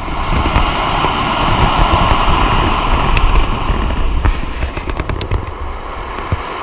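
Storm surf breaking and washing up a pebble beach, a loud steady rush of water, with strong wind buffeting the microphone into a low rumble.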